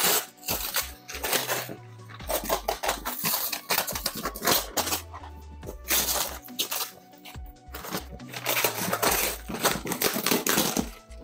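Brown kraft-paper wrapping being torn, crinkled and cut with scissors, in irregular rips and rustles, over background music.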